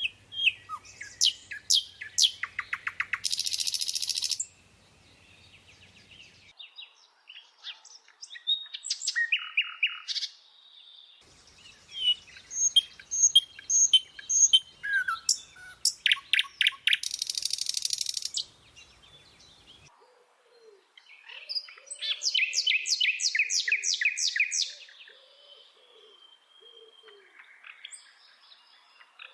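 A bird singing a varied song in separate phrases a few seconds apart: fast trills, buzzy rattles and high chirps, with short pauses between phrases.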